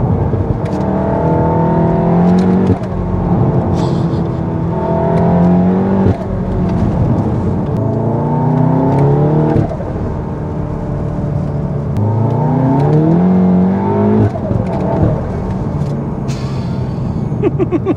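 Stage 3 big-turbo MK7 Golf R's turbocharged 2.0-litre four-cylinder, heard from inside the cabin, accelerating hard: the engine note rises through four pulls, each cut off by a sudden drop in revs at a manual gear change, with steadier cruising between them.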